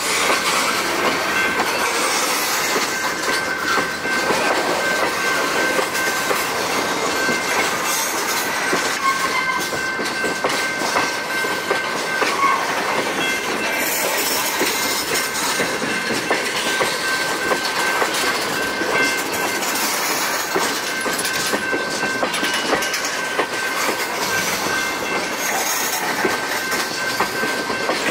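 Loaded railroad tank cars rolling past, their steel wheels clacking over the rail joints, with a thin steady high-pitched squeal from the wheels running through it.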